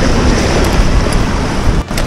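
Surf surging and washing over shoreline rocks, with wind buffeting the microphone in a low rumble.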